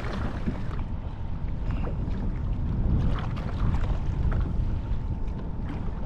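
Wind rumbling on the microphone over water splashing and lapping against a kayak hull, with a few faint knocks.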